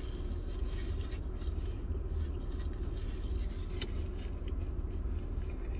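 Steady low rumble of a car idling, heard from inside the cabin, with quiet chewing and a single sharp click about four seconds in.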